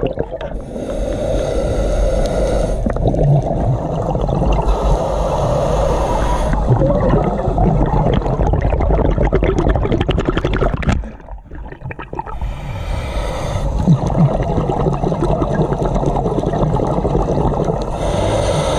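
Scuba diver's regulator breathing heard underwater: long spells of exhaled bubbles gurgling past the microphone, with a short quieter dip about eleven seconds in.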